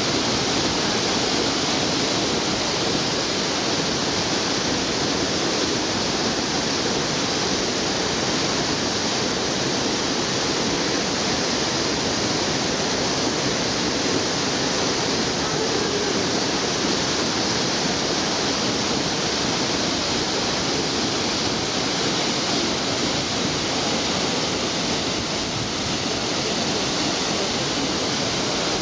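Minoo Falls, a high waterfall, pouring steadily into its plunge pool: an even, unbroken rush of falling water.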